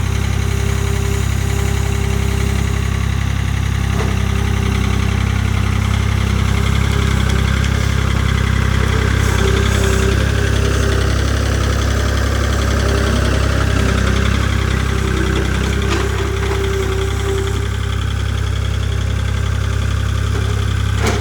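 An engine idling steadily with a constant low hum, holding the same pitch throughout without revving.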